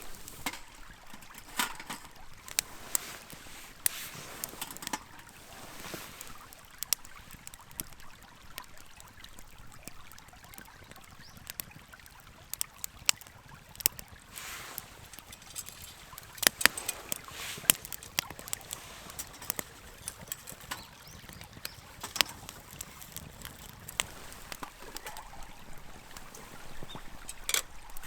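Small wood fire crackling, with irregular sharp pops and snaps over a low hiss.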